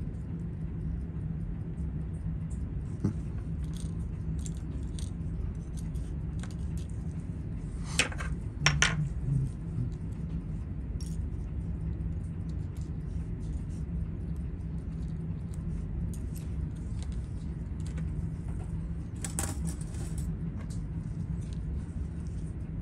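Small metal clicks and clinks of watchmaker's tools and watch parts being handled on a bench, sparse, with two louder clusters about a third and four-fifths of the way through, over a steady low hum.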